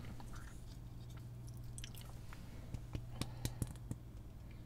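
Faint clicks and light taps of hands handling a tube of heatsink compound and a small LED chip, bunched together about three seconds in, over a steady low hum.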